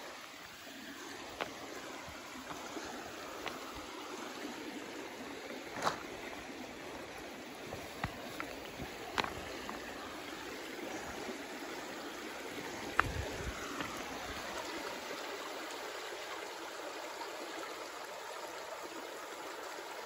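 Shallow rocky creek trickling and gurgling steadily over stones, with a few short sharp clicks scattered through, the loudest about two-thirds of the way in.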